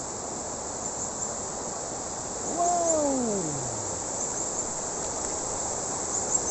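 Steady high-pitched insect chorus, crickets or cicadas chirping over and over, over the even rush of a shallow rocky stream. A man exclaims "wow" once, about halfway through.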